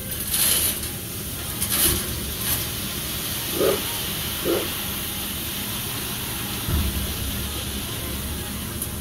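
Dump truck's diesel engine running while the bed lifts and gravel pours off the tailgate with a steady hiss, with a few louder rushes in the first two or three seconds. Two short yelps sound about four seconds in.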